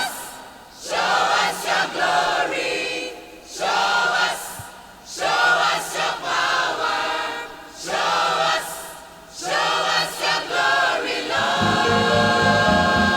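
Gospel choir singing in short phrases, each broken off by a brief pause. Near the end, the backing music fills out with held chords and bass, leading into the next section of the song.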